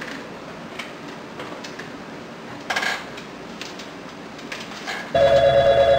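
Faint clicks of desk-phone keys being pressed, then about five seconds in a loud electronic telephone ring starts: a fast-warbling, steady tone.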